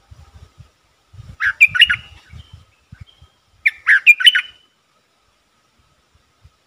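Stripe-throated bulbul song: two short phrases of quick chirped notes, the second about two seconds after the first. Soft low thuds sound underneath during the first three seconds, and a faint steady high tone runs through.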